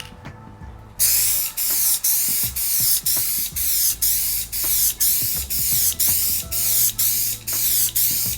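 Aerosol spray can of Duplicolor Custom Wrap Onyx Black paint spraying in short bursts, about two a second, starting about a second in, as coats are laid on the emblems.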